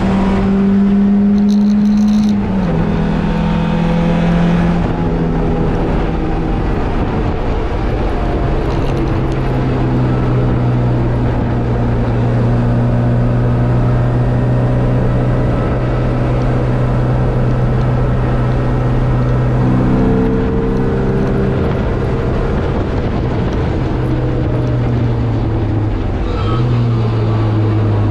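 An MGB race car's 1.8-litre B-series four-cylinder engine, heard from on board the car, running hard under load with wind and road noise. Its note steps down about two seconds in and again about eight seconds in, then holds steady for a long stretch before dipping slightly near the end.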